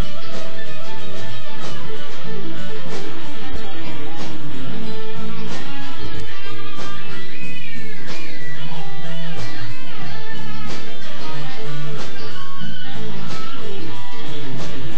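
Blues band playing live, instrumental: a Fender Telecaster electric guitar leads over bass and drums, with bent notes sliding in pitch about halfway through.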